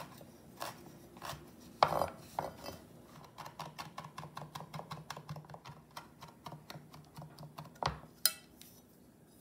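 Chef's knife mincing rosemary on a wooden cutting board: a few separate chops, then from about three seconds in a quick, even run of light blade taps, about six a second, ending with two louder knocks near the end.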